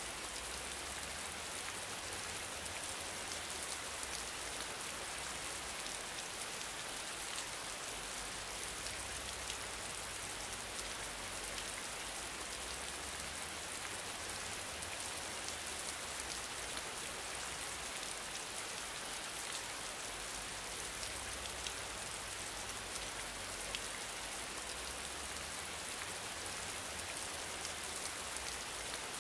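Steady rain-like noise with faint scattered ticks.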